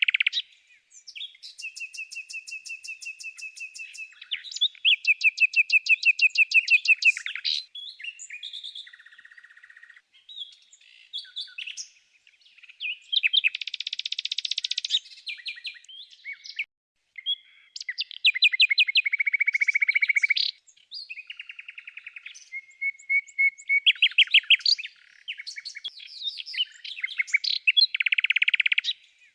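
Songbirds singing: a varied run of chirps, rapid trills and held whistled notes, phrase after phrase with short pauses between.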